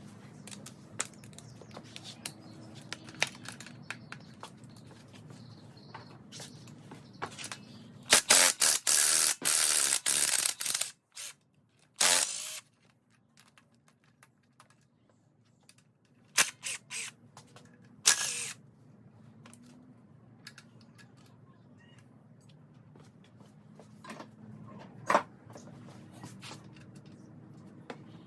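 Hand and power tools working on a bare LQ4 6.0 V8 during teardown: scattered metal clicks and clanks over a steady low hum. About eight seconds in comes a loud rapid rattling run lasting about three seconds, like a power tool spinning bolts out, then shorter loud bursts a little later.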